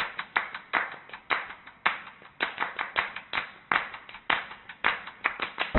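Hand claps alone, several a second in a repeating syncopated rhythm.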